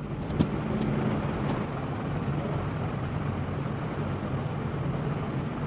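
Steady low mechanical hum over a background rush, with a few faint clicks as a screwdriver tightens the terminal screw of a socket on the extension board.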